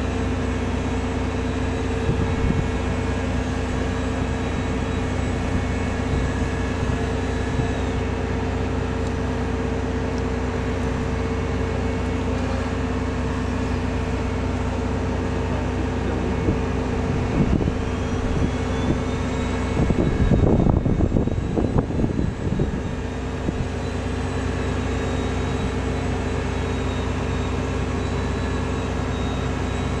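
Steady machinery drone with a low hum and a few constant tones, as of ground equipment running beside a parked cargo aircraft. A brief, louder, uneven rumble comes about 20 seconds in.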